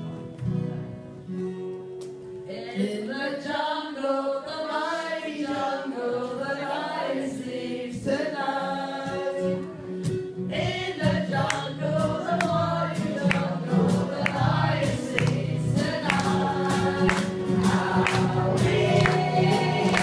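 A group of voices singing a song together to acoustic guitar accompaniment. The singing comes in about two and a half seconds in, and sharp rhythmic beats join from about halfway, the music growing louder towards the end.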